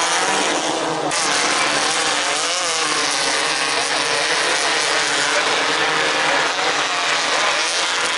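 Engines of several 1600cc off-road race buggies racing around the dirt track, their pitch rising and falling as they accelerate and back off, over a steady rush of noise.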